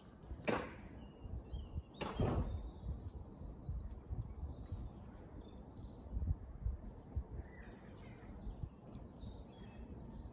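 Outdoor ambience with an uneven low rumble and faint bird chirps. Two brief loud whooshes come about half a second and two seconds in.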